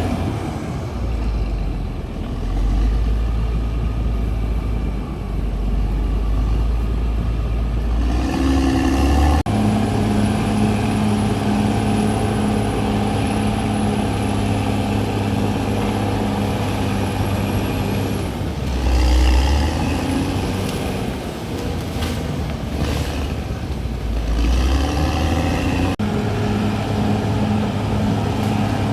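CAT D6R XL bulldozer's diesel engine running and working under changing load. A heavy low rumble in the first part gives way to a steadier engine note about nine seconds in, and there are brief surges of low rumble later on.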